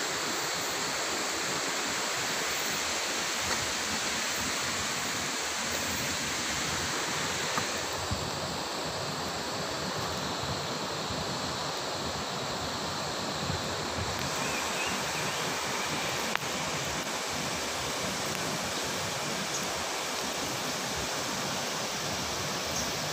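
River water rushing steadily over rocks in shallow rapids: a continuous, even rush that changes tone slightly twice.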